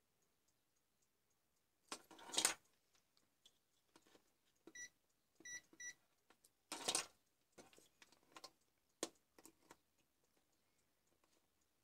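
Digital multimeter giving three short continuity beeps about halfway through as its probes touch the charger's circuit board, the beep signalling a low-resistance path between the probed points. Two louder rustles as the board and probe leads are handled, one near the start and one just past the middle, with light clicks of the probe tips.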